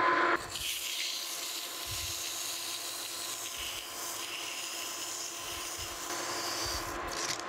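Metal lathe running while a strip of abrasive cloth is held against the spinning steel roller journal to polish it: a steady rubbing hiss over the lathe's hum. A louder rush fills the first half second.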